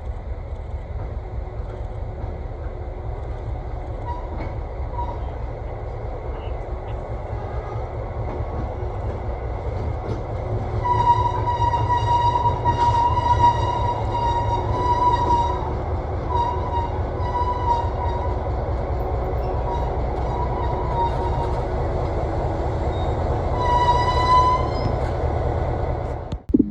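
EMD GP9 diesel-electric locomotive running by, its two-stroke diesel engine giving a steady low rumble. From about halfway through it sounds its multi-tone air horn in several blasts, the first and longest about two seconds, with another short blast near the end.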